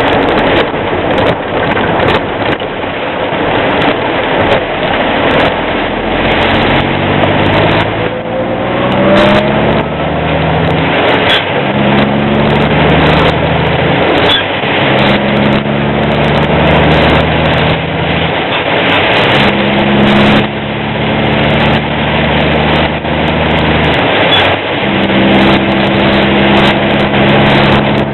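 Truck engine and road noise in driving rain. The engine note climbs and then moves up and down in steps from about eight seconds in, over a constant rush of tyre and rain noise.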